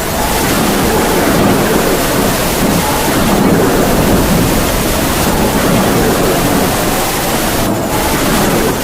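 Heavy rain with howling wind: a loud, dense, steady rushing noise.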